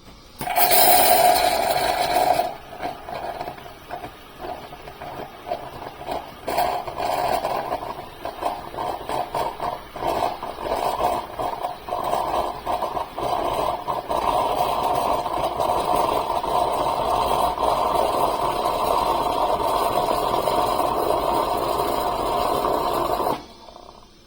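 De'Longhi Magnifica Start fully automatic espresso machine running: a loud burst at the start, then an uneven pulsing mechanical hum that settles into a steady hum and cuts off suddenly near the end.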